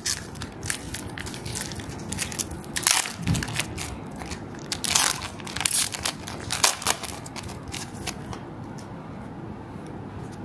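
Foil wrapper of a Pokémon TCG booster pack crinkling and crackling as it is torn open and pulled apart by hand. The loudest crackles come about three seconds in and again between five and seven seconds, and they fade near the end.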